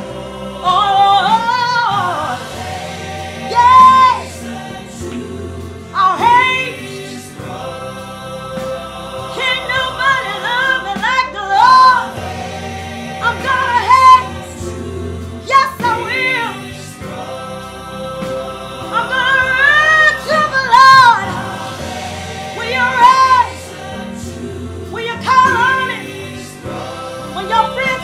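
A woman singing a gospel song at full voice, her long high notes wavering with a wide vibrato, over accompanying music.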